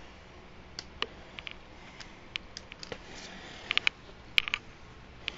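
Irregular light clicks and ticks, a dozen or more, bunched together about four seconds in, over a faint steady background.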